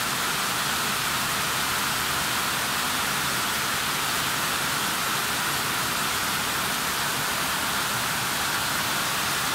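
Heavy rain pouring down steadily onto roofs and a flooded yard, an even, unbroken hiss.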